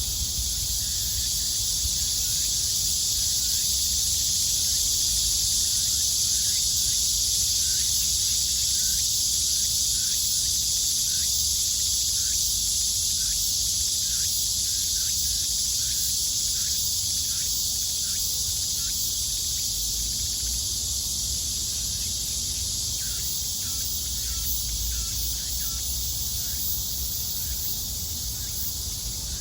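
Cicadas buzzing in a steady, dense summer chorus, with short chirps from a bird repeating a few times a second through most of it and a low rumble underneath.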